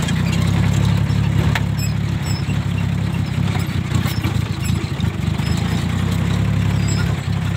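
The diesel engine of an old vehicle running steadily at low speed, heard from inside the cab, with a few sharp knocks and rattles from the bodywork as it rolls over a bumpy dirt track.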